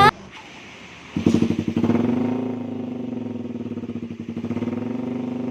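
Suzuki Satria FU's single-cylinder four-stroke engine, fitted with an aftermarket exhaust, comes in about a second in with a short burst of revs, then settles to a steady, pulsing idle.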